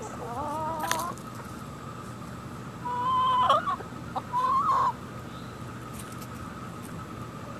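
Chickens calling: a drawn-out rising call in the first second, then two louder squawking calls about three and four and a half seconds in.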